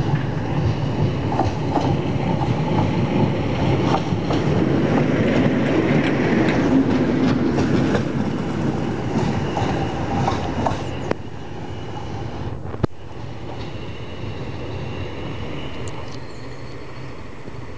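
Class 20 diesel locomotive, with its English Electric V8 engine running, approaches and passes close by. It is loudest about seven seconds in, with its wheels clicking over the rail joints, then fades as it draws away.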